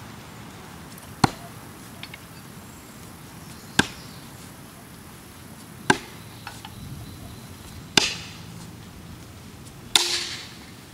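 Thrown tomahawks striking and sticking in the end grain of a wooden log target: five sharp thunks about two seconds apart, the last two trailing off a little longer.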